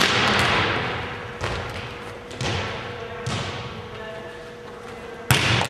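A volleyball spiked with a sharp, loud smack that echoes through the gym, then the ball rebounding three more times about a second apart, each softer. Near the end comes another loud hit, cut off abruptly.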